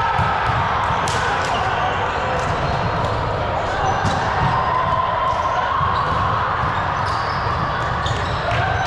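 Ball game in a gym: a ball being hit or bounced several times, short high squeaks and distant players' voices, all echoing in the hall over steady room noise.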